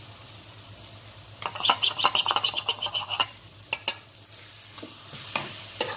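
A slotted metal spatula scraping and clattering in a non-stick frying pan of onion-tomato masala, with a run of quick rasping strokes about a second and a half in and two sharp taps just before the four-second mark. The masala sizzles in the oil, most clearly near the end.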